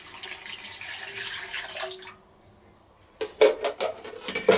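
Broth pouring in a stream from a measuring jug into a cast-iron Dutch oven to deglaze the browned vegetables, stopping about two seconds in. After a short quiet comes a quick series of sharp knocks.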